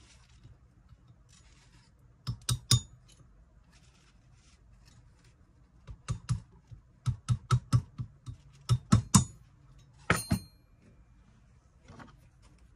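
Silverware pieces being tapped into shape on a small metal anvil: several short runs of sharp metallic taps, two to five at a time, one set ringing briefly about ten seconds in.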